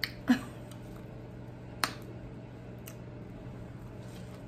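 A few sharp mouth clicks and smacks from eating close to the microphone. The loudest comes about a third of a second in and another near two seconds, over a steady low hum.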